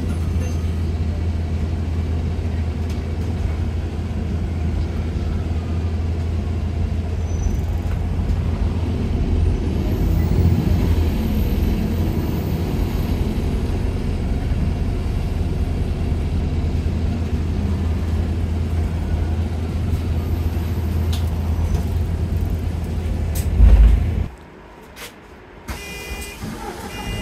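A bus's engine and air compressor running steadily with a deep hum. About 24 seconds in there is a loud low jolt and the engine cuts out, leaving it much quieter, and a few short electronic beeps sound near the end.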